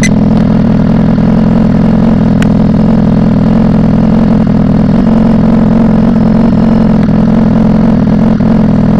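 BMW S1000RR inline-four engine running loudly without its muffler, holding a steady pitch with no revving.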